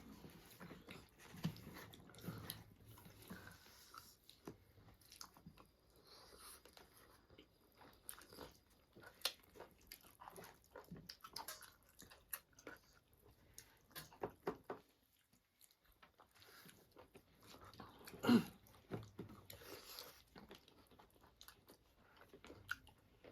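Close-up eating sounds: chewing and biting, with scattered small crunches and mouth clicks and a louder one about 18 seconds in.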